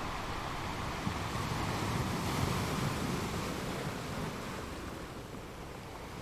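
Sea waves washing onto a shore: a steady rush of surf that swells about two seconds in and eases off toward the end.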